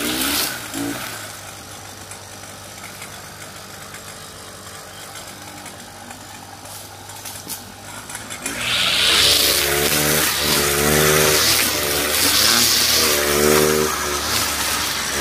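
Kawasaki TJ45 two-stroke brush cutter engine running at low throttle for about eight seconds, then revved hard as it cuts grass, its pitch rising and falling several times.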